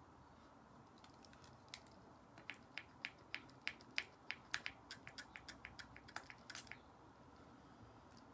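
Faint, quick, irregular small clicks and taps of plastic, about twenty over five seconds, as a plastic spray bottle and its cap are handled with long fingernails.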